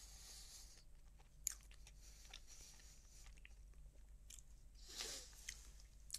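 Faint close-up chewing of a soft choux cream puff, with scattered small mouth clicks and a brief hiss at the start.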